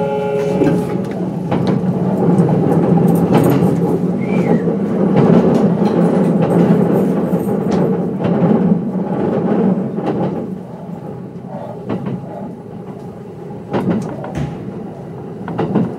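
Running noise heard inside a Kintetsu 22600-series limited express car: a steady rumble of wheels on rail with scattered rail-joint clicks. The rumble grows quieter about ten seconds in as the train eases off.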